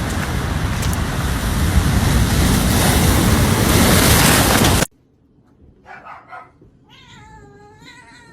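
A loud, steady rushing noise cuts off suddenly about five seconds in. A moment later a dog gives a wavering, whining call near the end.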